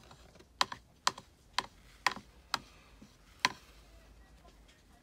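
Sharp taps, about six in a row roughly two a second, from a painting tool dabbed against the paper on the tabletop.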